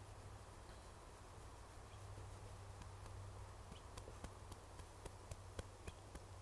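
Faint crackling of a small fatwood fire: short, sharp pops and ticks, a couple a second, starting about four seconds in, over a steady low hum.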